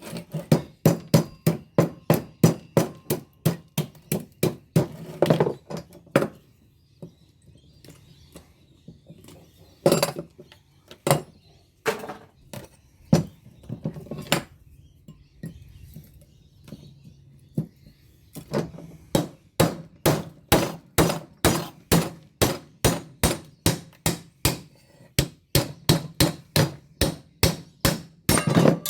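Hammer blows on a rectangular fluorescent light ballast's steel case and core as it is broken apart to free the copper windings. About three quick, even strikes a second, then a lull with a few single blows, then a steady run of strikes again from about two-thirds of the way in.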